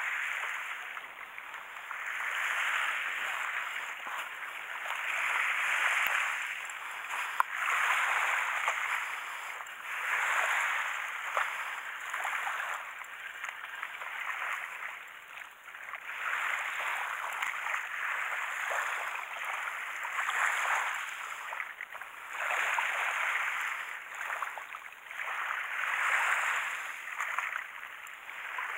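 Small waves washing up on a beach, the rush of water swelling and falling away every two to three seconds. There is one sharp click about seven seconds in.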